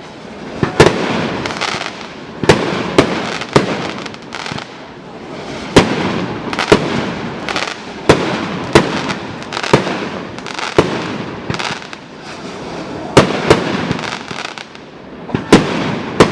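Fireworks going off: a run of sharp bangs, often several a second, each followed by a hissing crackle as the shells burst and their stars fizz out.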